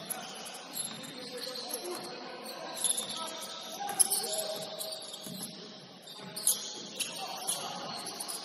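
Basketball shoes squeaking on a gym floor during play, short high chirps over a murmur of distant voices, with two sharp thuds about four and six and a half seconds in.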